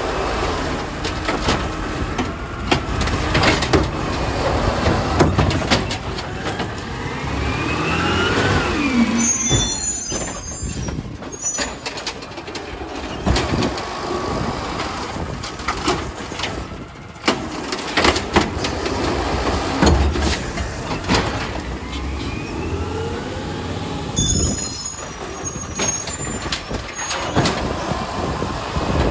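Garbage truck collecting recycling: the diesel engine runs and revs with a rising and falling whine twice as the hydraulics work. Knocks and clatter of the load, plus air-brake hiss, come through.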